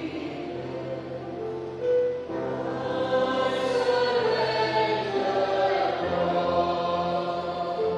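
Choir singing with long held notes that step from one pitch to the next, over a steady low accompaniment.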